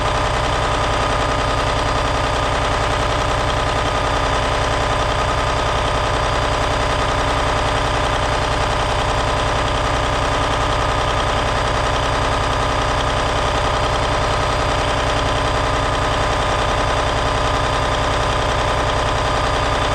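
Cummins N14 inline-six diesel engine running steadily with an even, rapid pulse, its speed unchanged.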